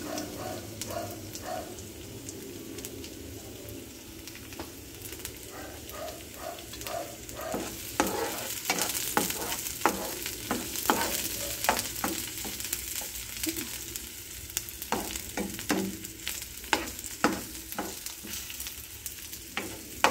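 Chopped garlic and ginger sizzling in oil in a nonstick frying pan, sautéed as the aromatic base, while a spatula stirs them with repeated knocks and scrapes against the pan. The knocks come more often from about eight seconds in.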